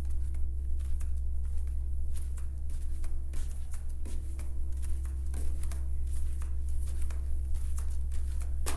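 A steady low electrical hum with faint steady tones above it, sprinkled with light scattered clicks and taps.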